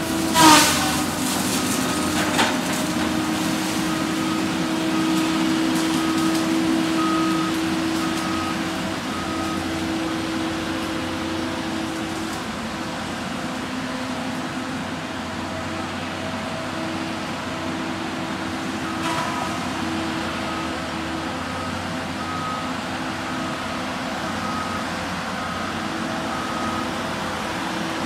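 Cat 573C feller buncher's diesel engine running steadily as the machine works, with its back-up alarm beeping about one and a half times a second in two spells. A short, loud screech falling in pitch sounds about half a second in.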